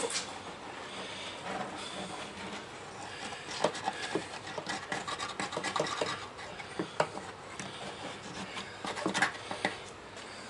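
Pieces of wood being handled and rubbed together during glue-up, with a continuous scraping and rubbing and scattered light knocks and clicks that become more frequent from about a third of the way in.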